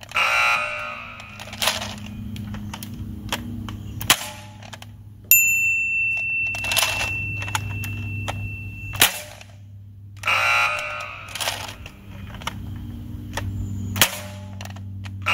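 Adventure Force Thundershot, a spring-powered hammer-action foam dart revolver, cocked and fired shot after shot, with sharp clicks and snaps every second or so over a steady low hum. A high steady beep starts suddenly about five seconds in and lasts a few seconds.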